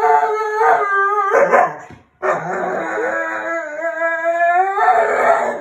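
A dog howling in long, drawn-out howls, with a short break about two seconds in. A man howls along with it.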